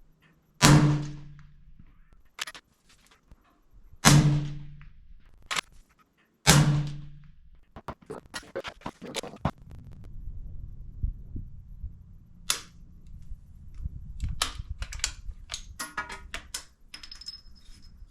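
Three suppressed shots from a 6.5 Creedmoor bolt-action rifle fitted with a Jackalope .280-calibre silencer, each a sharp crack with a short rumbling tail, the second about three and a half seconds after the first and the third about two and a half seconds later. Between and after the shots come scattered clicks and clatter of rifle handling.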